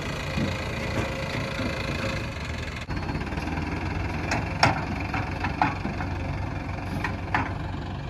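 Heavy diesel engine running steadily at idle, with a series of sharp metallic clanks in the second half.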